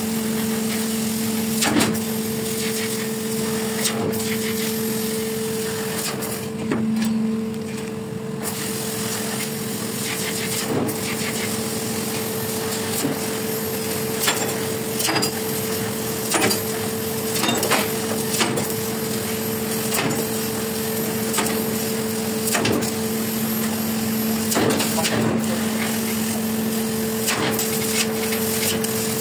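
CNC laser cutting machine cutting steel sheet: a steady two-tone machine hum over a hiss, broken by short sharp crackles and clicks at irregular intervals.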